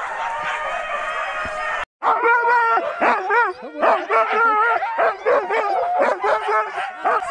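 A pack of sled huskies barking, yipping, whining and howling together, excited before a sled run. About two seconds in, the sound cuts out briefly. After that, nearer dogs yelp and whine in short cries that waver up and down in pitch.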